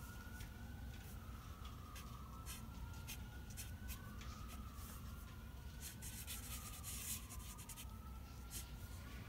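Sharpie marker writing on paper: a series of short, irregular strokes of the felt tip across the sheet, busiest a little past the middle.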